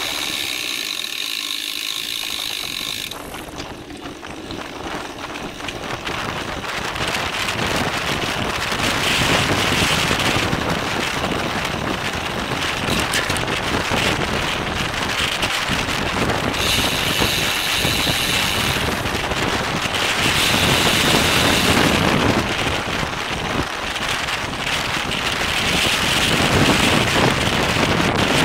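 Wind rushing over the microphone of a bicycle-mounted camera while riding, a steady noise that swells and eases several times.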